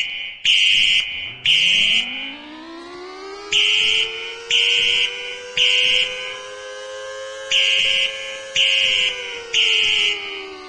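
Fire alarm beeping in the three-beep temporal pattern, three half-second beeps then a pause, repeating about every four seconds; this is the loudest sound. Underneath, a tornado warning siren winds up from a low pitch to a steady tone over the first few seconds, holds it, and begins winding down about nine seconds in.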